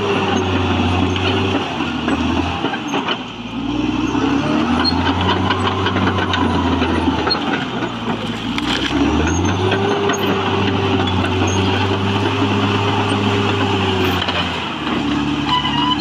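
Caterpillar D6R XL crawler bulldozer's diesel engine working under load as it pushes earth and roots, its pitch rising and holding in three long pushes and easing off twice in between, with the clatter of its steel tracks.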